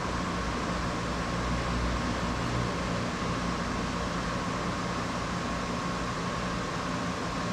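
Steady mechanical hum with a constant mid-pitched tone and a low drone, unchanging throughout.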